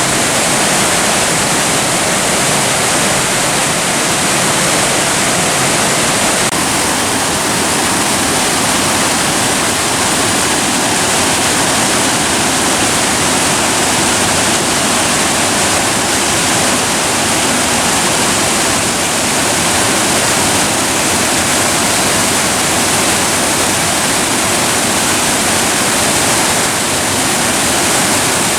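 Loud, steady rush of water tumbling over rocks and falls in a mountain gorge stream.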